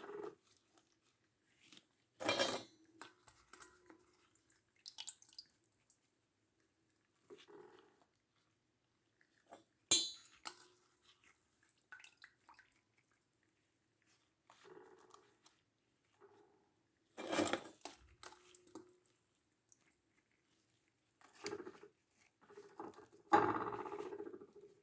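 Intermittent kitchen handling sounds: dishes and utensils knocking and clinking, with small wet sounds, as coffee-dipped ladyfingers are laid in a dish, the louder knocks coming at scattered moments.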